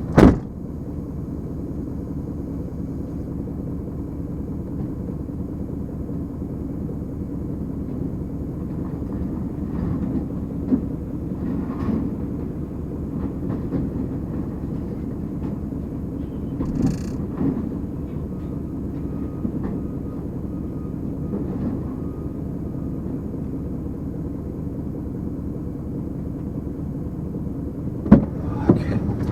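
Car crusher's engine running steadily under load, a low rumble with scattered clanks and knocks of metal, and a sharp bang just after the start and another near the end.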